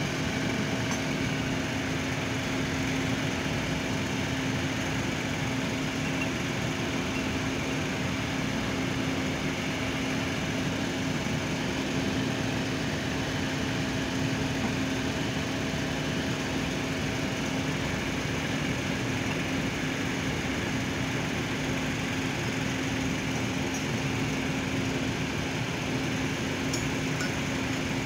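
Steady mechanical hum of running machinery with a constant low drone; a fainter, higher tone in it stops about two-thirds of the way through.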